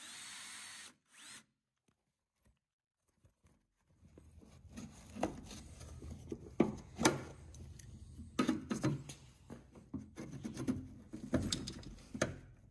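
A drill runs briefly driving a self-tapping screw through the canvas door card into the door, then stops. After a short pause come irregular knocks, taps and clicks with fabric rustling, as the canvas door card is handled and a screwdriver is worked behind it against the door.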